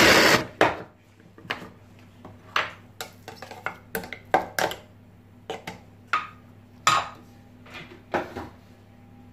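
An electric mini chopper's motor cuts off about half a second in. Then a string of sharp plastic clicks and knocks as the lid comes off and a spoon scrapes and taps inside the chopper's plastic bowl of mashed avocado.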